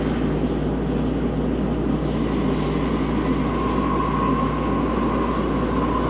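Toei Oedo Line 12-600 series linear-motor subway train running, heard from inside the car: a steady rumble and hum, with a thin whine joining about halfway through.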